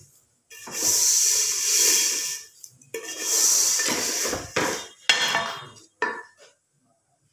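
Spatula scraping through vermicelli roasting in oil in a metal pot, tossing it in three long rustling, scraping strokes.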